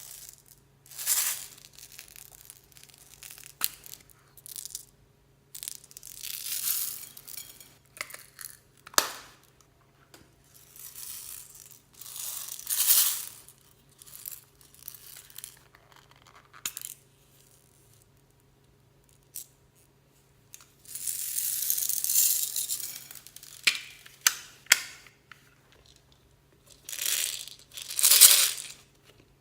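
Clear slime mixed with beads and floam being squeezed and kneaded by hand, giving irregular bursts of crackly, squelching noise with small sharp clicks from the beads, with a pause of a few seconds before a longer burst near the end.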